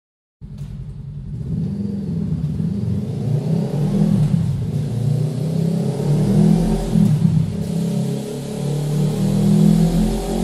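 Honda CB500F's parallel-twin engine revving through a MIVV Suono slip-on exhaust, starting after a brief gap, its revs rising and falling with two louder swells in the second half.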